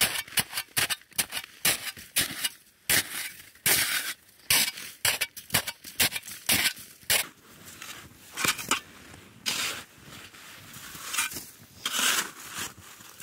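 Snow crunching and scraping in quick, irregular strokes, about three a second, thinning out after about seven seconds into fewer, longer scrapes.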